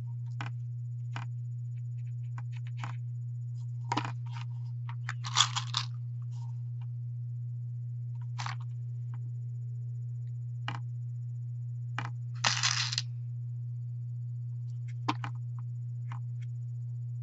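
Small clicks and taps of beads being picked up and a hot glue gun being handled on a work table, with two short rattles about five and twelve seconds in. A steady low hum runs underneath.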